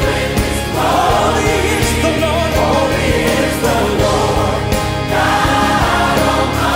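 A choir singing a gospel-style Christian worship song with instrumental backing.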